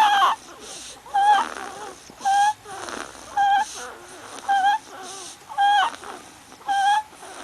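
Sleeping baby making a short, high squeak with each breath, about once a second, seven times, with quieter breathing sounds in between.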